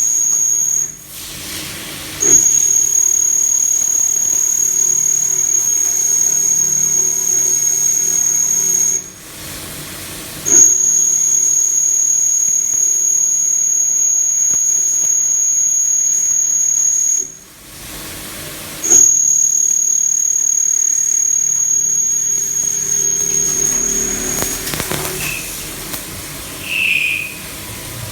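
CNC milling machine thread-milling an M24 thread: a high, steady squealing whine while the cutter is in the cut. It breaks off for about a second and a half three times, restarts each time with a sharp loud onset, and stops near the end.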